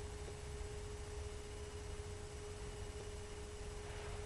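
Faint steady background hum with a single held tone and a low rumble underneath, over a light hiss: room tone.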